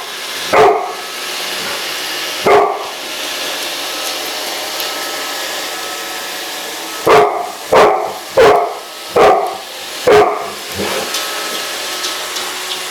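Dog barking over a running Roomba robot vacuum: two single barks a couple of seconds apart, then five barks in quick succession, with the robot vacuum's steady running noise underneath.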